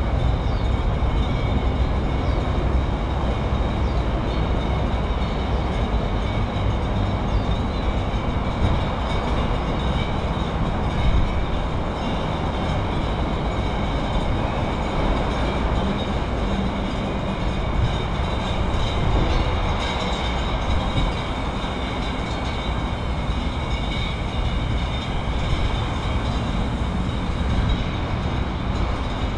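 Steady outdoor background noise: a continuous low rumble with an even hiss above it and no distinct events.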